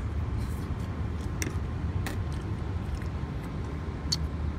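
A steady low rumble with a few light, sharp clicks and taps: a metal fork against a plastic clamshell food container.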